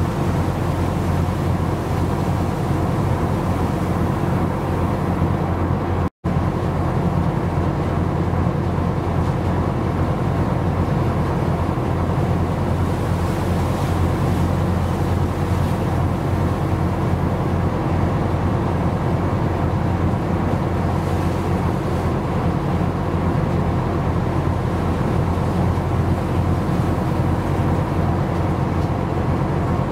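Steady low drone of a ship's engine, with a hiss of wind and sea over it. It cuts out for an instant about six seconds in.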